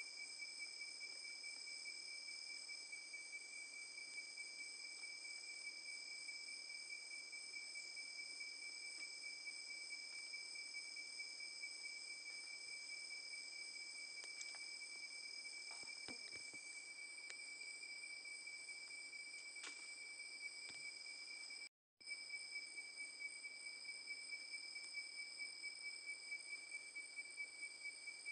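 Chorus of night insects such as crickets, trilling steadily at several high pitches. All sound cuts out for a moment about three-quarters of the way through.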